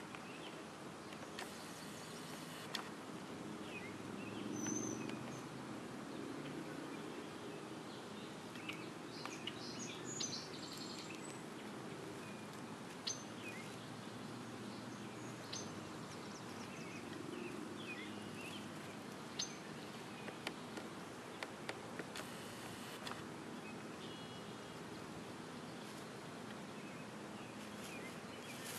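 Outdoor ambience: a steady low hiss with scattered short, high bird chirps now and then.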